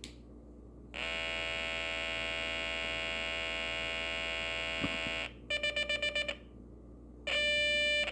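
Electronic alarm tone from a light-activated alarm kit, sounding as light falls on its solar cell. It gives a steady buzzy tone for about four seconds, then a quick run of about eight short beeps, then a louder, shorter tone near the end.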